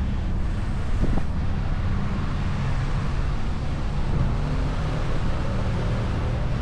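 Car driving, with a steady rumble of engine and road noise and wind blowing across the microphone.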